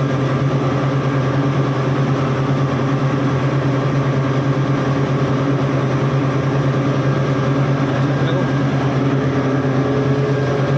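Steady, loud machinery hum: a deep drone with several steady tones above it, unchanging throughout.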